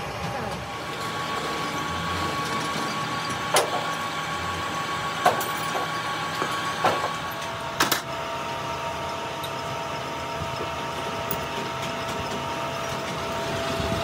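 Crankshaft factory machinery running: a steady mechanical whine over a haze of noise, with a few sharp knocks in the first half, and the whine shifts to a lower note about eight seconds in.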